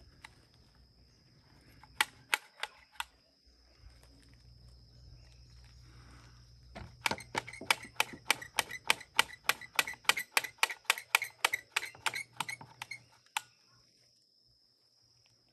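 Hammer striking nails into deck framing lumber: four quick blows, a pause, then a long run of rapid blows at about four a second lasting some six seconds. A steady high whine runs underneath.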